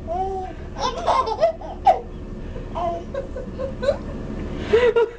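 Babies laughing and giggling in short bursts, loudest near the end.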